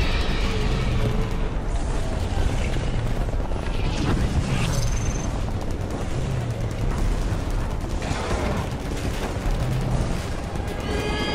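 Steady low rumble under a roaring hiss, with distant booms: sci-fi battlefield ambience.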